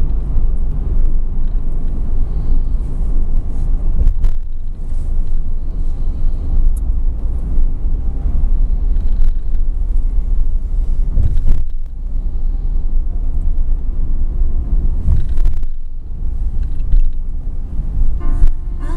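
Steady road and engine rumble heard inside a moving car's cabin, with a few brief dips.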